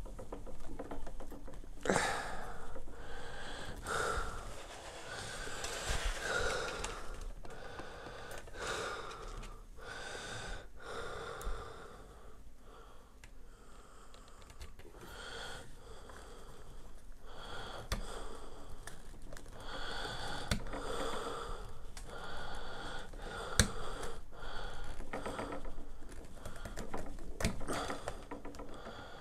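A person breathing audibly close to the microphone, a breath every two seconds or so. A few sharp clicks and knocks come from the parts of an aluminium headset stand being handled and screwed together.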